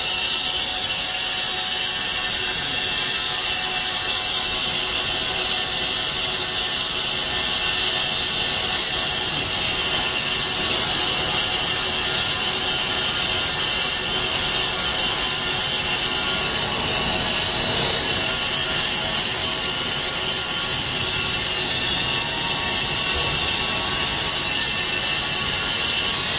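Vertical band-knife foam-cutting machine running steadily, its motor and blade giving a constant high-pitched hiss.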